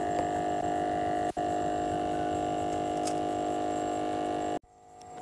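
A steady, even hum made of several tones at once. It drops out for an instant just over a second in and cuts off abruptly near the end.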